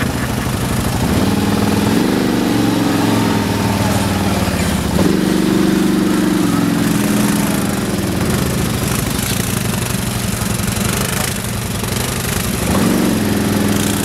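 ATV engines running, one revving up and falling back several times: about a second in, near two seconds, around five seconds and near the end, as the quads pull through deep mud.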